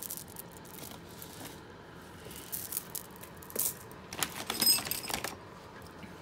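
Metal costume jewelry clinking and jangling as bracelets are handled and picked through from a pile: a few light clicks, then a short burst of ringing metal clinks about four seconds in.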